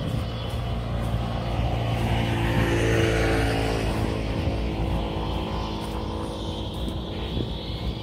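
A motor vehicle's engine passing close by, its hum swelling to its loudest about three seconds in and then slowly fading.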